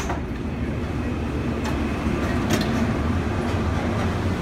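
Steady low hum of an automated airport people-mover shuttle car heard from inside its cabin, with two short clicks past the middle.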